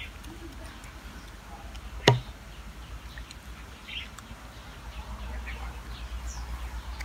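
Quiet outdoor ambience: a few faint, short bird chirps over a low steady rumble, with one sharp click about two seconds in.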